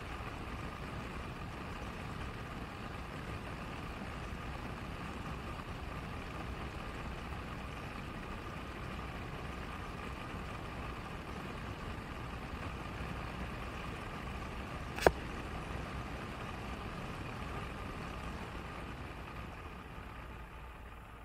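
Car driving along a road: steady engine and road noise, with a single sharp click about fifteen seconds in. The noise dies down near the end.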